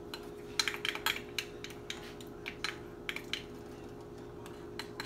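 Light, irregular clicks and taps of a measuring spoon against a plastic mixing bowl as tomato paste is scraped off it, over a steady low hum.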